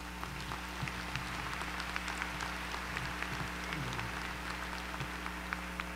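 Audience applauding: many hands clapping in an even patter, over a steady low electrical hum.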